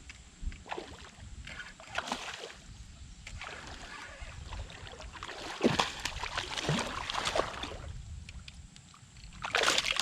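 Water splashing and sloshing in irregular bursts beside a kayak as a hooked bass is fought and brought in, loudest a little past the middle and again near the end.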